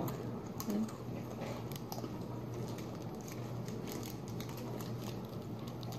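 Small irregular clicks and crunches of snacks being chewed and wrappers handled, over a steady low hum.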